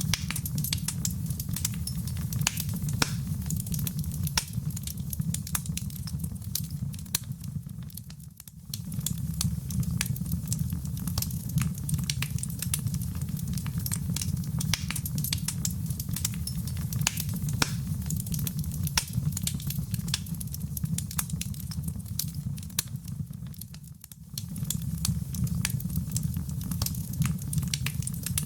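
Fire burning in a fireplace: dense crackling and popping over a steady low rumble. The sound briefly fades down and back up twice.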